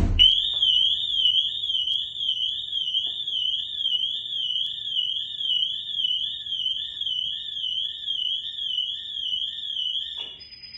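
Pandora Mini BT car alarm siren sounding a full alarm, warbling up and down about twice a second, then cutting off suddenly near the end. It is set off by a hard hit on the car tripping the second stage of the dual-stage impact sensor.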